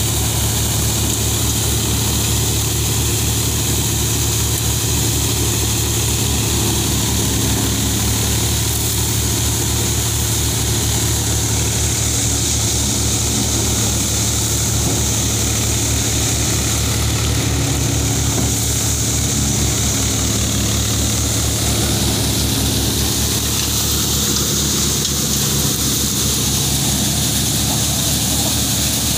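Power King wheat thresher running steadily as wheat sheaves are fed in: a low engine drone with a fast, even beat under a constant rushing hiss from the threshing drum and blower.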